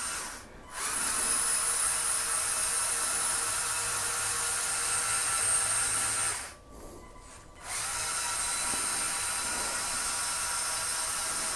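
LEGO Technic 42129 Mercedes-Benz Zetros trial truck's electric drive motors and gearing running at full speed with a steady high-pitched whine. The whine stops for about a second just past halfway, then starts again.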